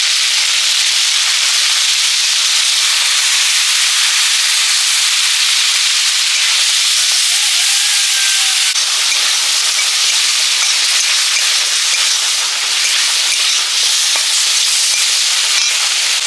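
Prawns frying in hot oil in an iron wok: a steady, loud sizzle. After about nine seconds the sizzle turns rougher as a metal spatula stirs them.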